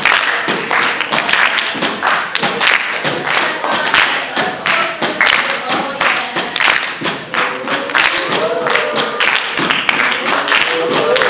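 Fast rhythmic percussion of taps, claps and thumps struck on everyday objects, several strikes a second, with brief snatches of voices in the later part.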